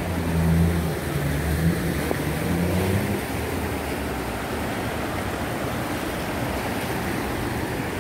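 Steady rushing noise of floodwater running through a street in heavy rain. Under it a low engine hum steps up in pitch and fades out about three seconds in.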